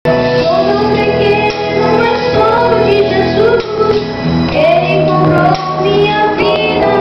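A child singing a Christian song into a microphone over an instrumental accompaniment, held notes that bend between phrases, amplified through the church loudspeakers.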